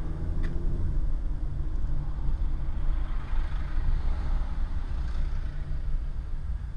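Car engine and tyre noise heard from inside the moving car's cabin: a steady low rumble. A single click comes about half a second in, and a hiss swells and fades in the middle.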